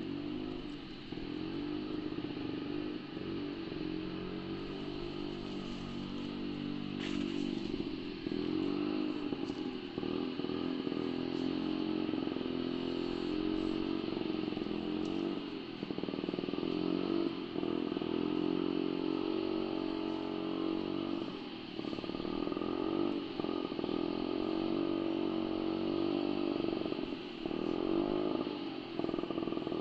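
Motorcycle engine running under load, its pitch rising and falling again and again as the throttle is worked.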